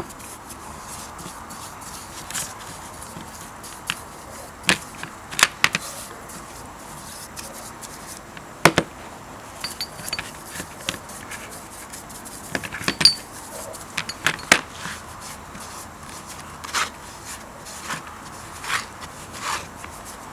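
Irregular clicks and knocks, a dozen or so spread unevenly, of small metal parts and hand tools being handled on a workbench, over a steady low hiss.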